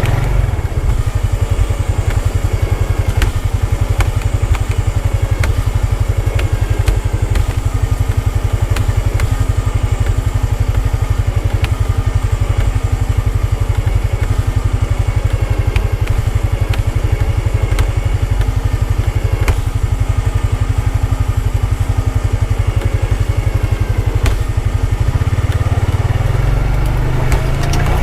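Honda Pioneer 520 side-by-side's single-cylinder engine running steadily while the machine, stuck in sand, is being winched out; scattered sharp ticks sound over it, and the engine note changes near the end.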